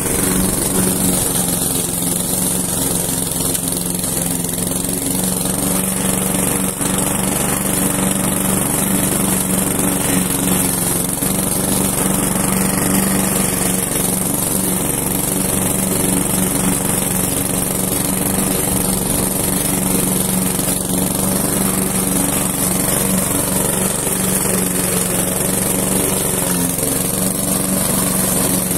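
Hyundai HDM 510P petrol lawn mower engine running steadily while the mower is pushed across grass, an even engine tone with no change in speed.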